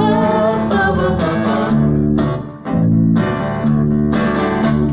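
Acoustic guitar strumming over electric bass in an upbeat country-folk groove, with voices singing a wordless line in the first second or so before the instruments carry on alone. The music drops briefly about halfway through.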